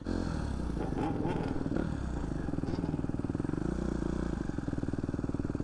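Motorcycle engine running under throttle while riding, the revs rising and falling.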